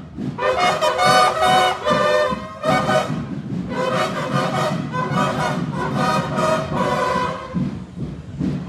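Marching band playing brass horns over a steady drumbeat; the horns fade out near the end as the band passes.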